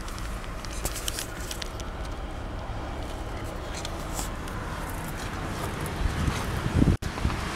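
Toyota Sienna's 3.5-litre V6 idling steadily, with small handling clicks and rustles; louder knocks near the end.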